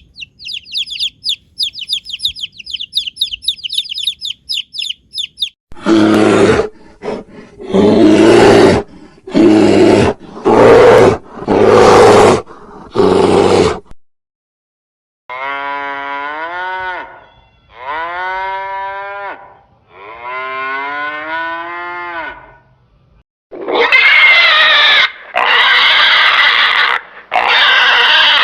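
A sequence of different animal calls. First a rapid run of high chirps, then about six loud, harsh roaring grunts of about a second each. After a short gap come three drawn-out calls with a clear pitch that rises and falls, and near the end loud, harsh squeals begin.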